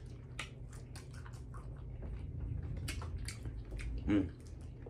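Person chewing a fried chicken nugget, a run of many small irregular mouth clicks and soft crunches, with a short closed-mouth "mm" about four seconds in.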